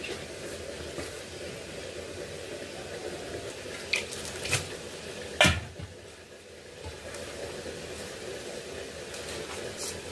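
Kitchen sounds: a few light clinks and one sharp knock about five and a half seconds in, as of dishes or utensils being handled, over a steady low background.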